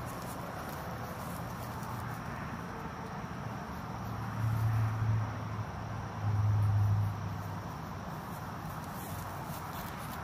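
Night insects chirping steadily. Two brief low hums come about four and six seconds in.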